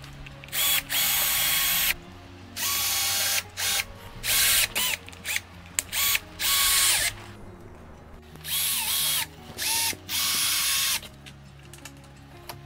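Bosch cordless drill/driver driving screws into a particleboard furniture panel in about a dozen short stop-start bursts, its motor whine dipping in pitch at the end of some bursts.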